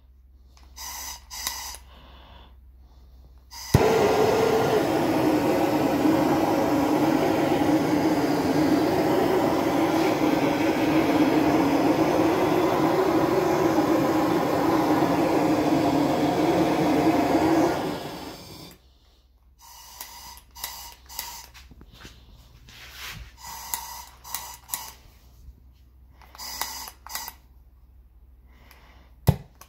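Handheld trigger-start gas torch lighting with a sharp click about four seconds in, then its flame burning with a steady hiss for about fourteen seconds before it is shut off.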